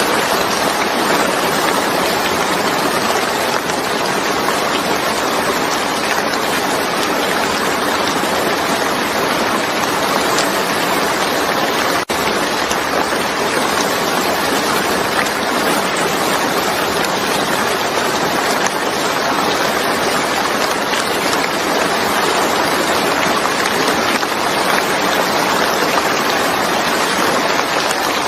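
Rain falling steadily, a dense even hiss of countless drops, with one momentary dropout about twelve seconds in.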